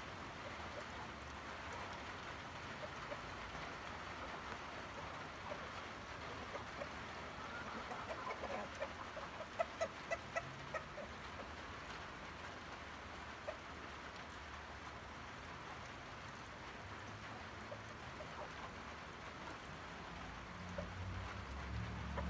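Backyard chickens clucking, a quick run of short calls about eight to eleven seconds in, over a steady background hiss.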